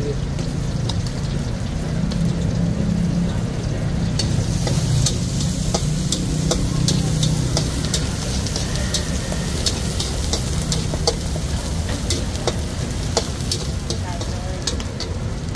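Egg frying and sizzling in a steel wok, with a metal ladle and spatula stirring it and clacking against the wok many times. The sizzle grows louder about four seconds in.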